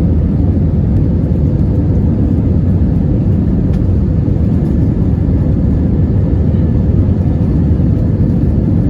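Steady low rumble of an Airbus A320's cabin: engine and airflow noise at an even level throughout, with a faint steady hum.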